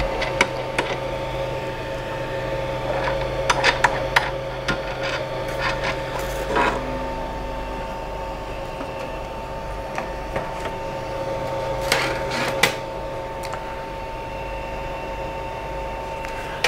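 Scattered clicks and knocks of a resin 3D printer's plastic resin vat and parts being handled as the vat is unfastened, lifted out and set down, over a steady hum.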